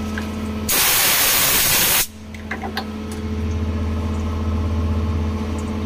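Mazak CNC lathe humming steadily at rest, with a loud hiss lasting just over a second near the start, followed by a few light clicks.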